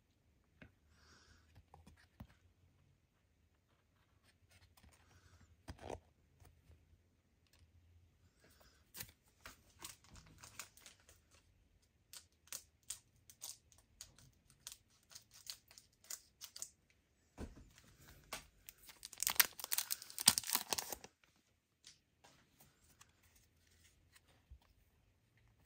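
Trading cards being handled, with scattered light taps and slides, then a foil card pack crinkling loudly as it is torn open about three-quarters of the way through.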